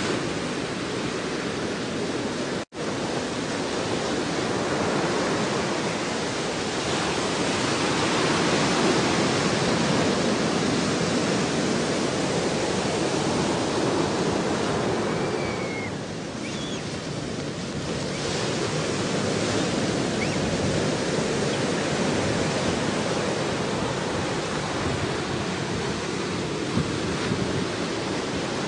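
Steady rushing of ocean surf and wind, a dense even noise that swells and eases slightly, broken by a split-second dropout about three seconds in.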